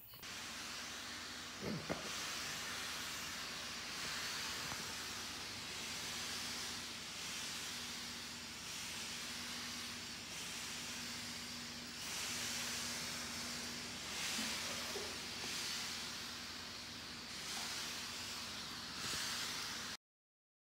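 Electric steam mop running: a steady hiss of steam with a faint steady hum under it and a couple of light knocks about two seconds in. It cuts off suddenly near the end.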